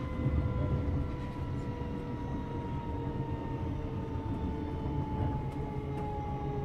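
Interior of a refurbished "Renatus" Class 321 electric multiple unit on the move: a steady rumble of wheels on track under a motor whine that slowly falls in pitch as the train slows.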